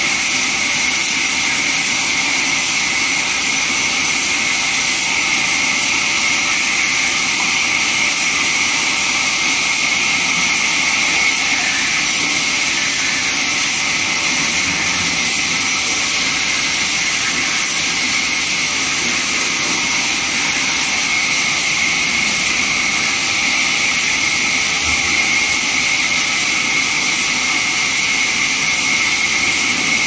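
Large vertical band sawmill running, its blade cutting through a log slab with a steady, high hiss.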